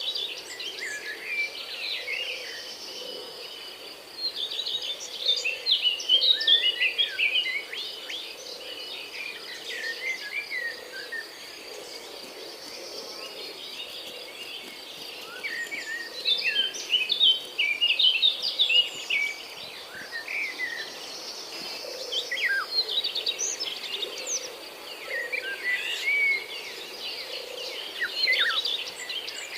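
Several birds chirping and warbling in lively bursts over a steady high insect trill.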